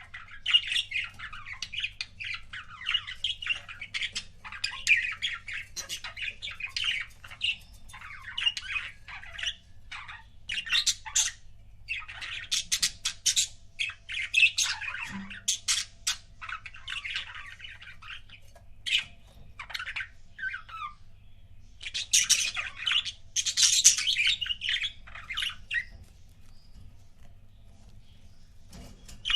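Budgerigars chattering and squawking in quick, irregular bursts of high chirps, with a lull near the end.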